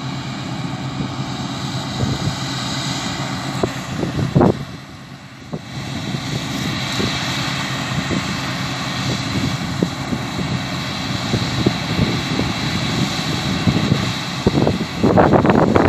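Claas Lexion 660 combine harvester running steadily while harvesting, a constant drone of engine and threshing machinery with a high whine above it. Near the end a loud buffeting noise comes in, wind on the microphone.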